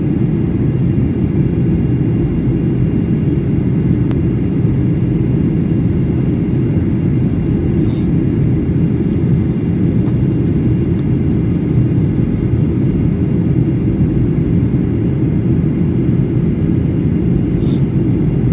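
Cabin noise of a Boeing 737-800 in flight: a steady low rumble of engines and airflow heard from inside the cabin, with a faint steady hum.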